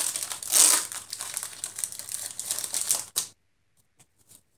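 Foil wrapper of a Pokémon trading card booster pack crinkling as it is wrestled and torn open by hand. It is loudest about half a second in and stops abruptly about three seconds in, followed by a few faint ticks.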